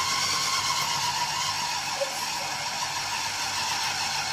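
Electric food processor motor running steadily as it kneads bread dough in its bowl.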